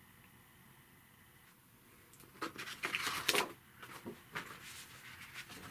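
Near silence, then from about two and a half seconds in, a run of short knocks, clicks and rustles as framed pictures are handled and swapped.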